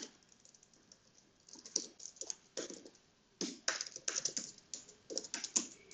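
Typing on a computer keyboard: irregular runs of keystroke clicks that begin about a second and a half in and come thicker and faster in the second half.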